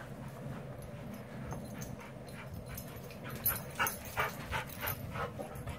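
A sheepadoodle panting: a run of quick breaths, about three a second, starting around the middle.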